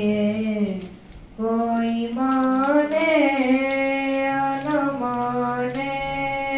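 A boy's voice chanting a melodic mourning recitation into a microphone in long, held notes. One phrase ends just under a second in, and after a short breath a long sustained phrase follows.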